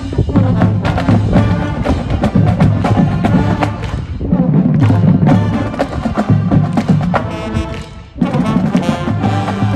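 Marching band playing brass and drums. It drops away briefly about eight seconds in, then the full band comes back in loudly.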